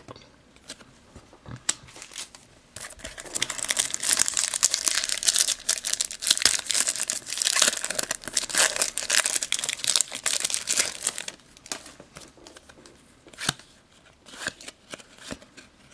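Panini Euro 2012 trading-card foil packet crinkling and tearing as it is opened, for about eight seconds. Then a few light clicks and rustles as the cards are handled.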